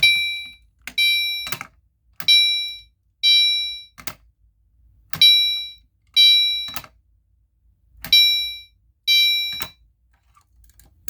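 Gentex Commander 3 fire alarm horn strobe sounding a chime tone in code 2: pairs of short, fading chimes about a second apart, each pair repeating every two to three seconds, four pairs in all.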